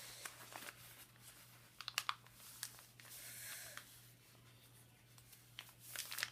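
A sheet of paper being folded and creased by hand, with scattered rustles and crackles and a quick cluster of sharper crackles about two seconds in.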